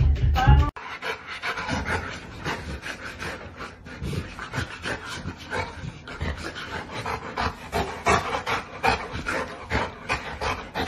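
A dog panting in quick, even breaths, after a brief low rumble that cuts off under a second in.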